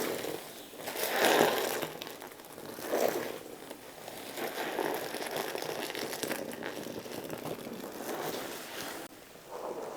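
Rustling and rubbing of a deep-tissue massage, hands working over fabric and skin, in a few stronger swells in the first three seconds, then a steadier, quieter rustle.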